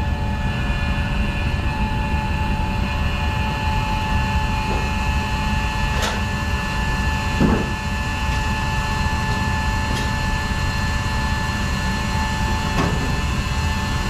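A motor or blower running steadily: a low rumble with a constant whine over it, unbroken throughout, with a few faint clicks.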